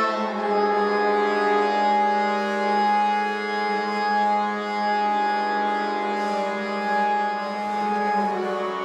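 Instrumental music of long held chords over a steady low drone, with no singing.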